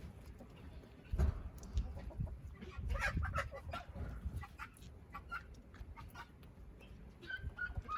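Domestic chickens clucking, a run of short calls from several birds, over a low rumble.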